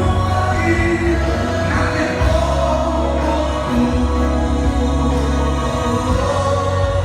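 Gospel worship music: voices singing held notes over accompaniment with a steady deep bass.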